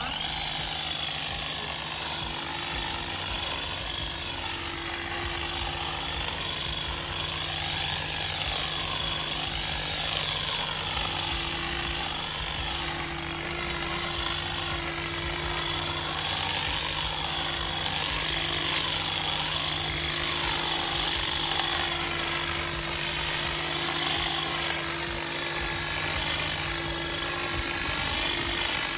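Power hedge trimmer running steadily while cutting back an olive tree. Its pitch holds constant, with a slow wavering sweep in the higher sound as the trimmer is moved about.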